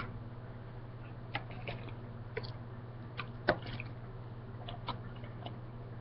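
Hands twisting and handling hair close to the microphone: scattered small clicks and rustles, with one sharper click about three and a half seconds in, over a steady low electrical hum.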